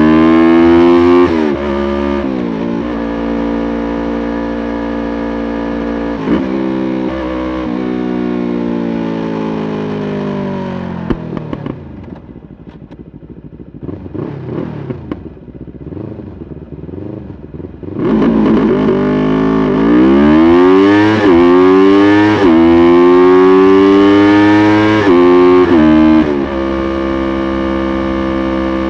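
Yamaha YZF-R3's parallel-twin engine under way: the pitch rises and then breaks at an upshift, and the engine note falls as the throttle eases off. It drops to a quieter low note for several seconds in the middle, then pulls hard again, rising through several gears with a break at each upshift before holding a steady note near the end.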